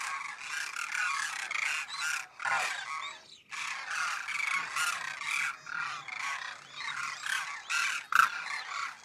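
A flock of demoiselle cranes calling in flight: many overlapping calls at once in a dense, continuous chorus, with a brief lull about three and a half seconds in.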